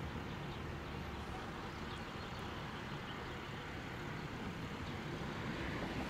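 Steady hum of road traffic, with no siren tone to be heard.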